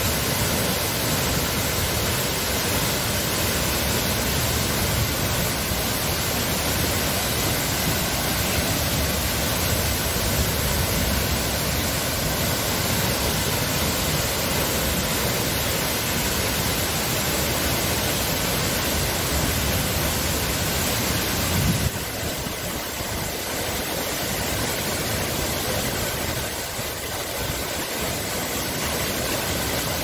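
Waterfall crashing into a shallow rock pool: a steady, loud rushing noise. About 22 seconds in it becomes slightly quieter and loses some of its low rumble.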